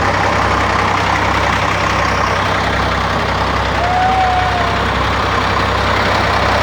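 Mercedes-Benz O400 bus's diesel engine running steadily at idle. A short thin whistle-like tone sounds about four seconds in.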